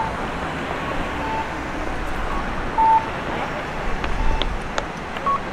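City street ambience: steady traffic noise with short electronic beeps recurring every second or so, the loudest about three seconds in.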